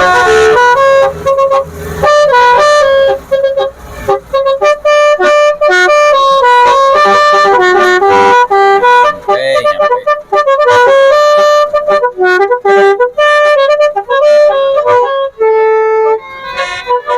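Telolet basuri melody air horn, fed from an air tank, playing a fast tune of loud stepped horn notes with brief gaps between phrases.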